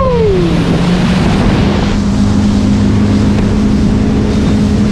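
Motorboat engine running steadily at cruising speed, a constant low hum over the rush of water and wind noise on the microphone aboard the boat.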